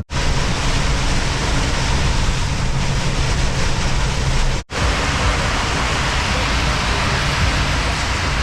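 Heavy rain pelting a semi-truck's cab as it drives, a steady loud hiss over the low drone of the diesel engine and road noise.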